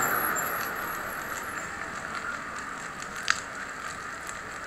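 Wildfire burning through roadside brush: a steady hiss that slowly fades, with occasional sharp pops, the loudest about three seconds in.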